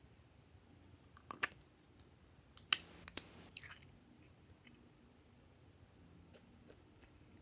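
Small plastic container being handled: sharp clicks and taps, the two loudest about three seconds in, followed by a short wet squish as thick orange goo drops out onto slime.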